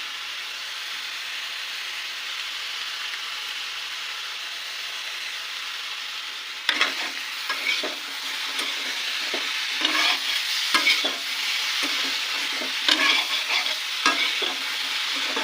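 Food frying in a pan with a steady sizzle. From about seven seconds in, a spoon or spatula stirs and scrapes against the pan in repeated sharp clicks over the sizzle.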